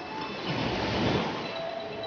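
Small waves washing up onto a sandy beach, the surf swelling about half a second in and easing off again.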